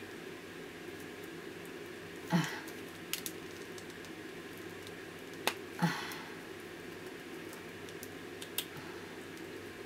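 Light plastic clicks and taps as the small plastic doll's hair piece and head are handled and pressed back onto its body, about five in all, the loudest two about two and a half and six seconds in, over a steady low room hum.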